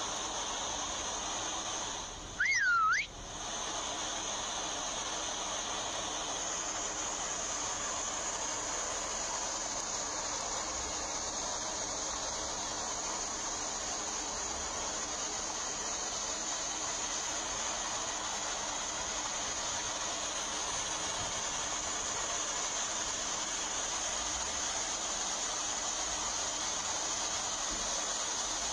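Steady rush of river water pouring over a weir. About two and a half seconds in, a brief loud whistle-like sound dips and then rises in pitch.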